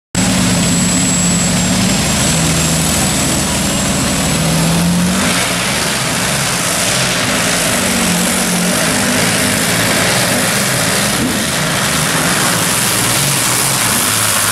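Competition pulling tractor's engine running loud at high revs during a pull, a harsh, noisy engine sound with a pitch that rises briefly about five seconds in.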